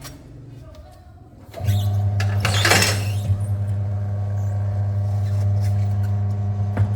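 A steady low mechanical hum starts about one and a half seconds in, with a brief rush of hiss just after it begins, and cuts off suddenly near the end.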